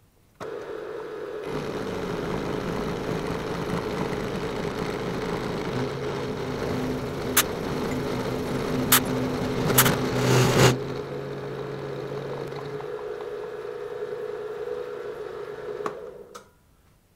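PM-727 milling machine's spindle starting with a steady whine, then a roughing end mill cutting a channel in an aluminium disc, with a few sharp clicks and a loud burst about ten seconds in as the cut ends. A hand drill turning the table handwheel adds a lower hum through the middle of the cut. The spindle then runs on alone for a few seconds and stops near the end.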